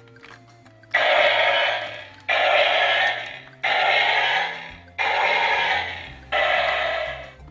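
Electronic sound effect from a Power Rangers Galaxy Force toy, played five times in a row. Each is a sudden, loud, hissing burst that fades over about a second, repeating at an even pace over background music.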